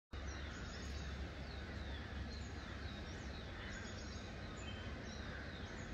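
Small birds chirping and twittering in many short, quick calls, some sliding in pitch, over a steady low rumble.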